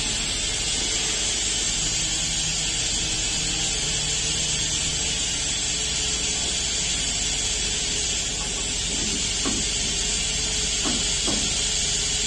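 Steady hissing noise over a low machine hum, with a few faint knocks near the end.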